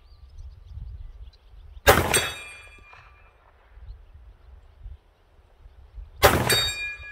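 Two single pistol shots from a Polymer80-framed Glock 19 in 9mm, fired about four seconds apart as slow aimed fire. Each shot is a sharp report followed by a brief ringing tail.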